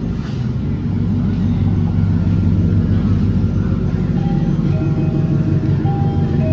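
GMC truck's engine and exhaust running steadily with a deep, low rumble that grows a little louder about a second and a half in. The exhaust leak has just been fixed, and the truck sounds different for it.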